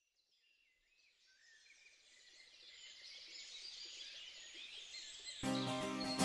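Birds chirping, fading in from silence and growing steadily louder. A little after five seconds, music starts abruptly.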